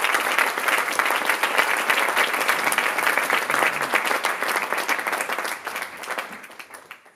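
Audience applauding, a dense, steady clapping that fades out over the last two seconds.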